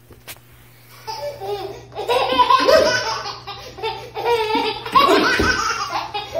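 A baby laughing hard in a long string of short bursts, starting about a second in.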